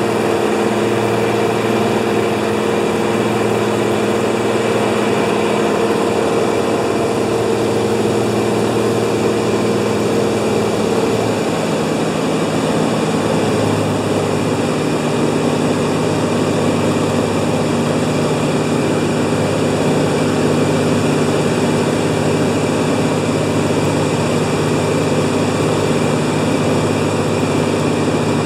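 Beaver floatplane's engine and propeller running steadily, changing pitch about twelve seconds in.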